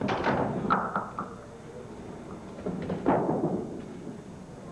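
Candlepin bowling-alley clatter of wooden pins and balls: sharp knocks right at the start and again about three seconds in, with a brief ring after the first, over a low rumble.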